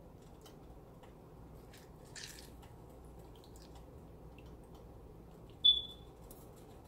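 Lemon halves squeezed by hand over a pot of sauce, with faint drips and squishing as the juice runs into it. About three-quarters of the way through, one short, sharp, high-pitched chirp is the loudest sound.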